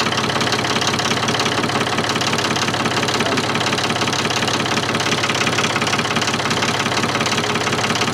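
Ford 4000 tractor engine idling steadily with an even, rapid pulse, running shortly after a cold start.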